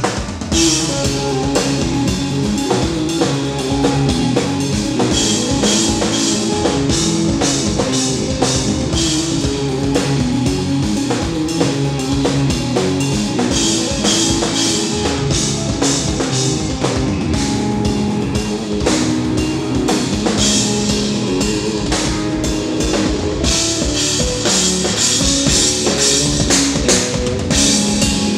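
Instrumental progressive metal played live by a band: a busy drum kit with bass drum and cymbals under distorted eight-string electric guitars, kicking in suddenly at full volume.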